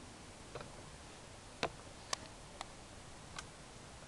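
Five sharp clicks and taps at uneven intervals over a faint steady hiss, the second click the loudest: handling noise on a handheld camera's body as it is moved.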